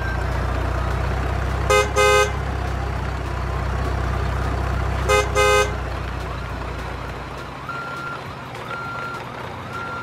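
Car engine running with a steady low rumble, and a car horn giving two short honks about two seconds in and two more about five seconds in. The engine fades after about seven seconds, leaving faint short beeps about once a second.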